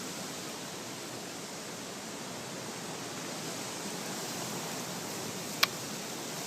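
Steady wind hiss on a phone microphone outdoors, with a single sharp click about five and a half seconds in.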